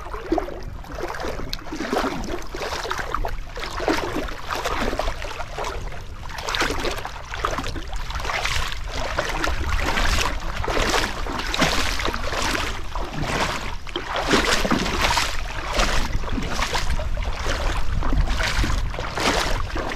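Rhythmic splashing or swishing strokes of water, about one to two a second, becoming steadier and more regular from about halfway through, over a steady low rumble.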